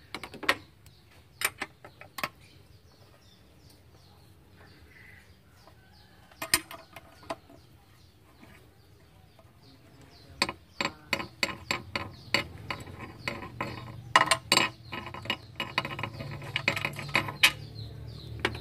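Ratchet wrench clicking as the valve cover bolts are undone: a few separate metallic clicks at first, then a dense run of quick ratcheting strokes from about ten seconds in.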